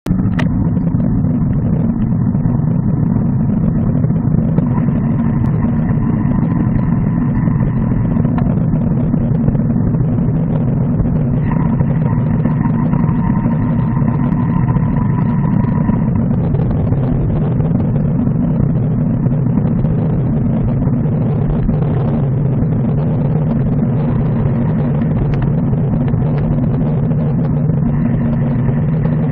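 Steady low rumble of wind and road noise picked up by a bicycle-mounted camera while riding on a road, with faint thin tones that come and go.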